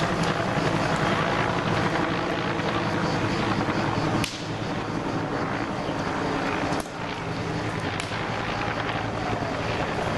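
Steady low drone of an aircraft engine, with a few sharp clicks and slight dips in loudness about four and seven seconds in.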